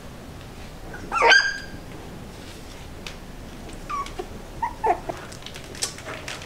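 Young border collie puppies yelping and whimpering: one loud, high-pitched yelp about a second in, then a few shorter whimpers around four to five seconds.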